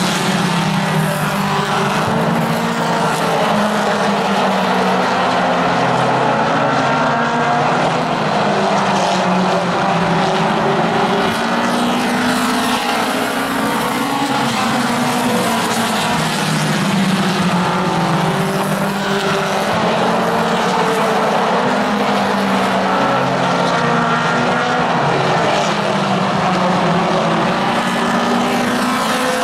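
A field of four-cylinder mini stock race cars running at racing speed around an oval track. Several engines run at high revs together, and their pitch swells and falls every few seconds as cars pass and go through the turns.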